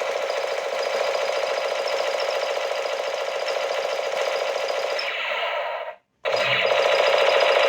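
Battery-operated toy machine gun firing continuously: a fast, steady rattle of its gunfire sound effect. It cuts out for a moment about six seconds in, then starts again.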